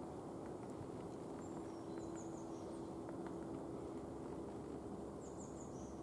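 A few faint, irregular taps, typical of a middle spotted woodpecker working the bark, over outdoor background noise and a steady low hum. Twice a small songbird gives a quick run of high, thin, falling chirps, the second run near the end.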